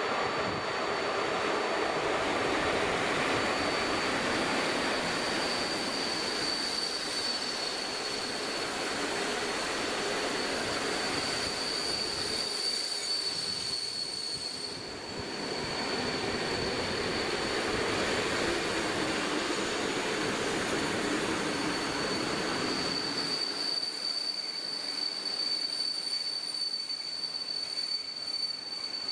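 Passenger train behind an EP07 electric locomotive rolling into the station and slowing, its carriages rumbling past with a steady high-pitched squeal from the braking wheels. The low rumble fades over the last few seconds as the train nears a stop.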